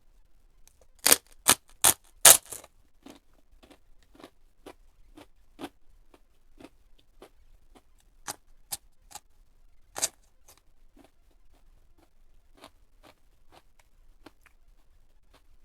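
Close-up crunching of crispy food being bitten and chewed: four loud crunches about a second in, then a run of quieter crunches about two a second, with a few louder ones later.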